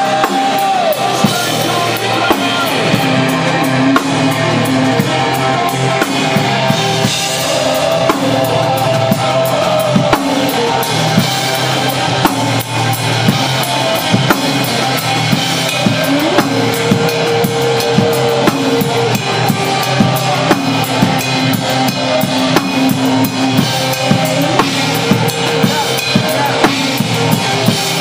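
Loud rock music driven by a drum kit beating steadily, with sustained instrument tones over it.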